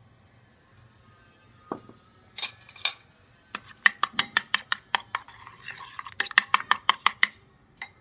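A metal spoon beating an egg into yeast water in a glass bowl, clinking against the glass. A few single clinks come first, then from about three and a half seconds in a fast run of clinks, about five a second, for nearly four seconds.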